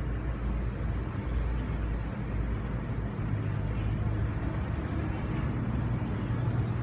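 Steady low background rumble, with most of the sound in the bass and a faint hiss above it, unchanging throughout.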